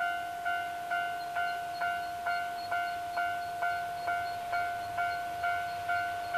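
Railway level-crossing warning bell ringing steadily, about two bright ringing strikes a second, each fading before the next. Under it, a low rumble from the approaching diesel-hauled train grows in the second half.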